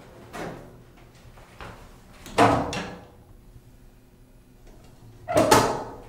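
Otis Series 5 elevator's sliding doors banging: two loud knocks about three seconds apart, each lasting about half a second, with fainter knocks before them.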